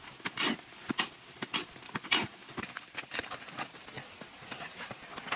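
Irregular sharp clicks and knocks, a few each second, like hard objects striking and scraping.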